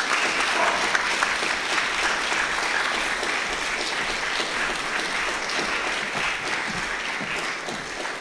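An audience applauding with steady clapping that thins slightly near the end.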